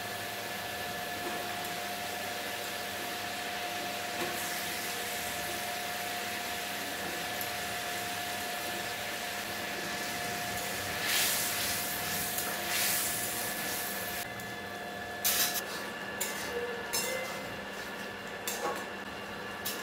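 Spiced gravy bubbling in a metal kadai with a steady hiss. From about eleven seconds in, a metal spatula stirs the added eggs and potatoes, scraping and knocking against the pan in a run of sharp clicks.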